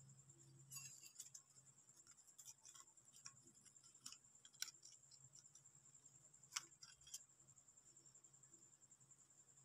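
Faint crinkles and clicks of thin aluminium sheet being bent and pried apart by hand: the foil cover of a rice cooker warm plate. Two sharper clicks come about four and a half and six and a half seconds in.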